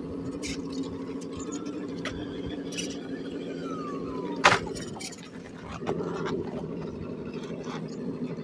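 Electric motor and geared drivetrain of an RC rock crawler whining steadily as it crawls, dipping briefly and picking up again about a second after the knock. A single sharp knock about four and a half seconds in, with a few lighter clicks around it.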